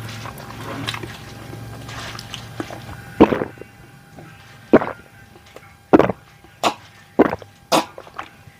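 A person gulping water from a drinking glass, close to the microphone. About six loud, sharp swallows come roughly a second apart, starting about three seconds in.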